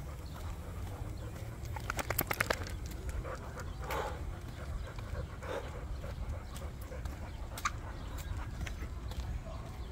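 Dog panting and breathing on a walk, with a quick rattle of about eight sharp clicks about two seconds in.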